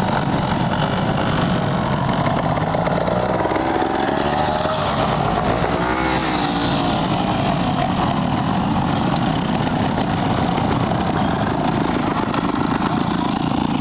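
Trials motorcycle engines running at low revs with short throttle blips as a rider works over the obstacles. There is a rise and fall in engine pitch a few seconds in, over a steady, noisy background.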